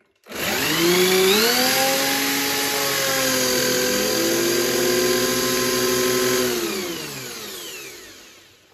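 Corded electric drill spinning a Roots-type car supercharger by its pulley bolt: a high-pitched whine that rises as it spins up, holds steady with a brief dip in pitch about four seconds in, then winds down and fades near the end.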